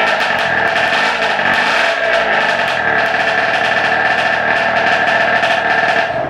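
Small experimental two-stroke engine, the PiP engine with a longer secondary intake, running at high revs on a test stand. It drops away sharply a little after six seconds in.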